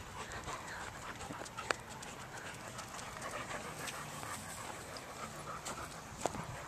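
A dog panting steadily. There is a sharp click just under two seconds in and another near the end.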